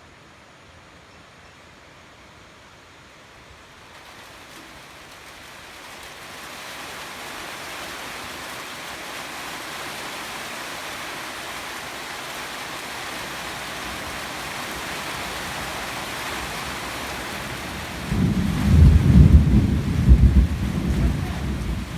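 Heavy rain starting: a faint hiss swells over a few seconds into a steady downpour. Near the end a loud, uneven low rumble rises over the rain for about four seconds.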